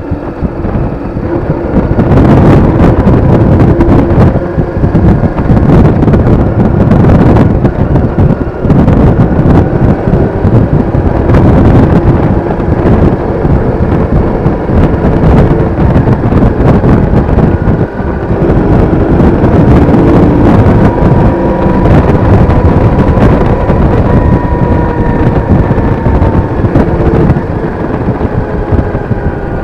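Yamaha DragStar Classic's V-twin engine running at road speed, its pitch rising and falling gently with the throttle, half-buried under heavy wind rush on the microphone that gets much louder about two seconds in.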